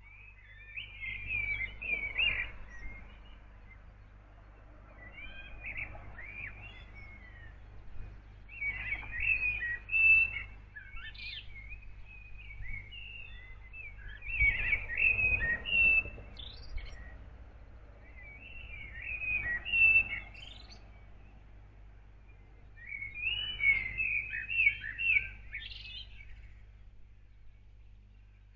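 A songbird singing short, varied warbling phrases, one every three to five seconds, over a steady low background rumble.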